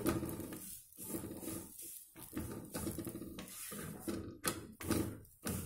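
Wooden spatula scraping and pressing a paratha around on a griddle, with a couple of sharp knocks about four and a half seconds in.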